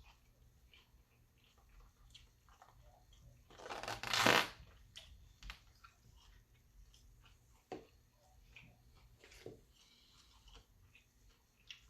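A person eating fried chicken close to the microphone: soft chewing and small mouth clicks, with one louder noisy burst lasting about a second, about four seconds in.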